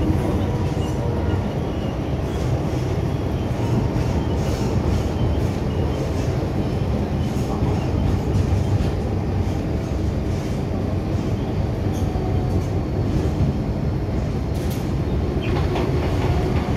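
Running noise of an MTR M-Train heard from inside the car: a steady rumble of wheels on rail, with occasional short clicks over track joints.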